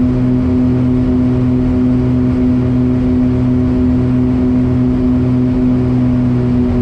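Piper Aerostar's twin engines and propellers droning steadily in the cabin, with a throbbing pulse that swells and fades about once a second: the two propellers are out of sync.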